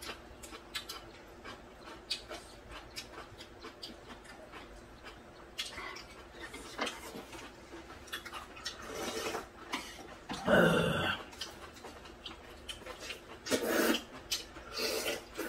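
Eating sounds: chopsticks ticking against wooden bowls, then loud slurps of cold soybean-soup noodles and broth in short bursts, the loudest about two-thirds of the way in.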